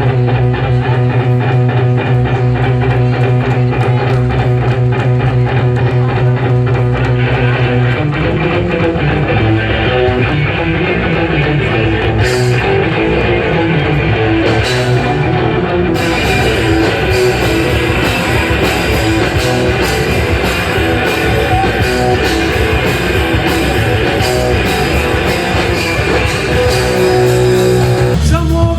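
Rock music led by guitar, with no singing. Held chords sustain over a steady low note for about eight seconds, then the full band comes in, and the sound grows brighter and busier about halfway through.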